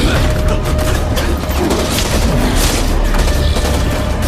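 Film battle soundtrack: continuous rapid gunfire and deep booms mixed with music.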